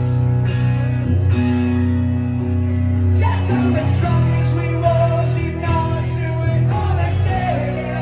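Live duo of acoustic guitar and electric bass playing a rock song, with a man singing over it through the second half.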